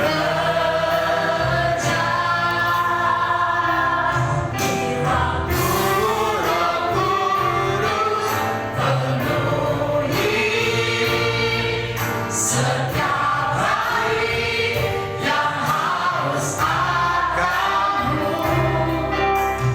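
Congregation and worship team singing a Christian worship song with a full band: sustained sung melody over bass, keyboard and a steady drum beat.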